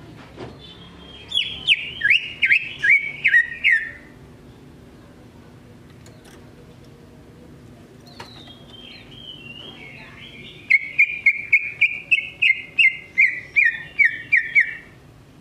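Male greater green leafbird (cucak ijo) singing. A run of about eight clear whistled notes, stepping down in pitch, comes about a second in. After a pause, a longer run of quick repeated whistles follows near the end.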